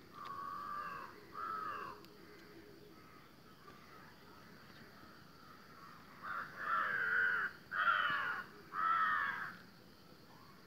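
A bird calling with five harsh caws: two fainter ones near the start, then three louder ones in quick succession about six to nine and a half seconds in.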